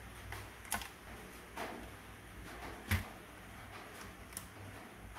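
A few scattered clicks and knocks of a screwdriver and fingers working on the plastic chassis and gearbox of a Huina 1573 RC dump truck during disassembly. The loudest knock comes about three seconds in.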